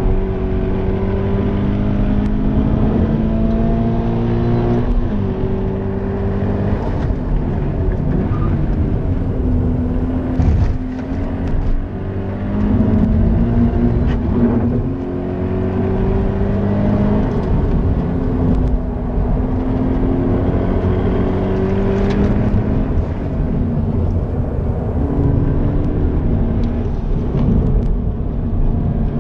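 Stock Toyota GT86's 2.0-litre FA20 flat-four engine heard from inside the cabin under hard track driving, rising in pitch through the revs and stepping down at each gear change. It eases off briefly about ten seconds in before pulling hard again.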